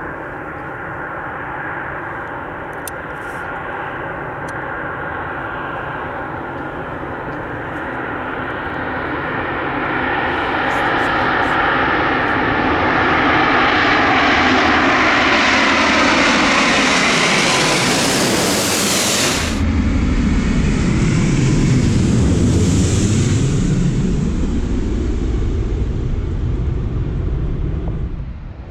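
Airbus A350-900 with Rolls-Royce Trent XWB engines on its landing approach: engine whine and rumble grow steadily louder as it comes in. About two-thirds through it passes close, its tones sliding down in pitch, and a deep rumble follows as it moves on down the runway. The sound cuts off suddenly at the end.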